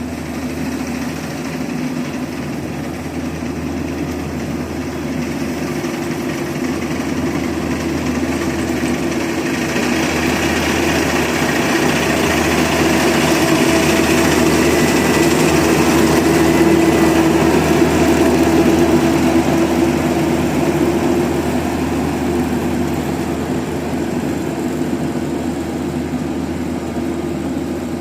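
Combine harvester engine running steadily, growing louder toward the middle and easing off somewhat near the end.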